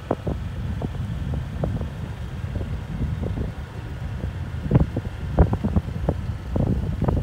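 Wind buffeting the microphone on a moving motorcycle: a low rumble with irregular gusts that grow stronger near the end.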